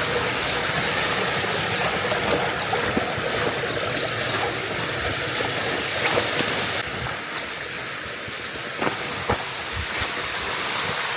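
Steady rush of a mountain stream flowing over rocks, a little softer after about seven seconds. A few sharp clicks or knocks sound over it in the second half.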